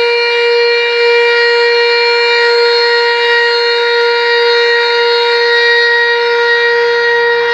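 Volunteer fire station's alarm siren sounding the call-out for the firefighters: one loud, steady, held tone.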